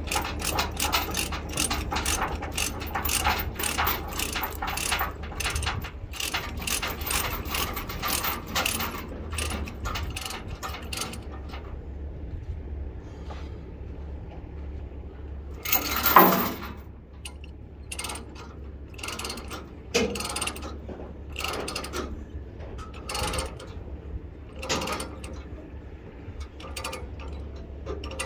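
Ratchet chain binder being cranked to tension a tie-down chain: rapid ratcheting clicks for about the first eleven seconds, then a single loud metal clank about sixteen seconds in, followed by slower, spaced clicks. A steady low hum runs underneath.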